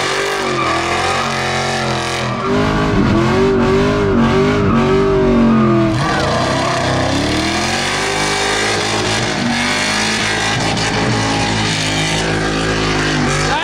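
LS V8 drift car revving hard through a drift, the engine pitch rising and falling over and over and loudest for a few seconds early in the run, with tyres squealing. The engine is running down a cylinder, with a spark plug wire off.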